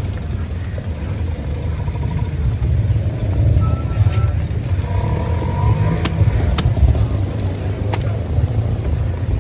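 Steady low rumble of motor-vehicle engine noise, with a few sharp knocks in the second half as the fish is handled and cut on the wooden chopping block.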